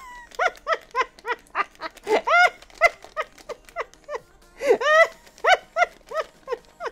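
High-pitched squeaky chatter that makes a hand puppet "talk": a fast string of short squeaks, each rising then falling in pitch, about three or four a second, louder in bursts about two and five seconds in.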